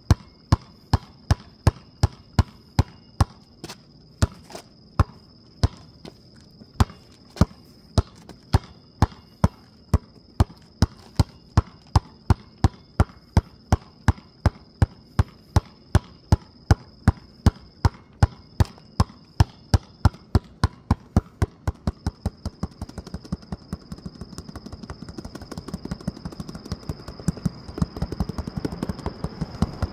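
Basketball dribbled on rough asphalt, sharp bounces about twice a second. About twenty seconds in, the dribbles turn faster and quieter over a rising rushing noise. A steady high-pitched whine runs throughout.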